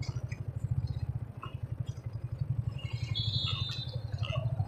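Yamaha R15 V4's single-cylinder engine running at low revs as the bike rolls slowly, a steady, rapid putter of exhaust pulses.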